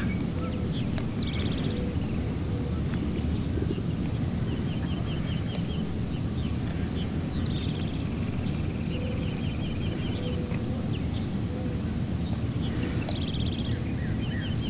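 A bird calling several times, each call a quick downward-sliding note followed by a fast run of short, high repeated notes, over a steady low rushing background.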